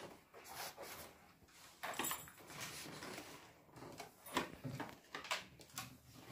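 A few scattered light clicks and small knocks with soft rustling as a string of LED fairy lights is handled and laid along a shelf.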